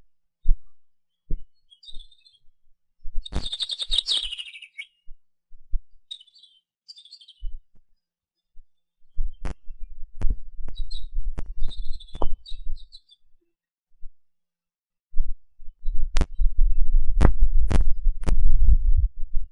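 Small birds chirping in short bursts, with wind gusting across the microphone in uneven low rumbles and sharp clicks; the rumble is loudest in the last few seconds.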